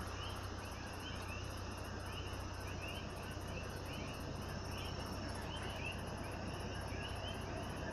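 Night insects, crickets among them, chirping in a steady outdoor chorus: a fast, even high pulsing with a slower repeating chirp beneath it, over a low steady hum.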